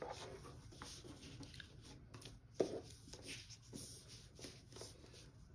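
Faint rustling of a paper pattern and cloth being shifted and smoothed by hand on a table, with a slightly louder rustle about two and a half seconds in.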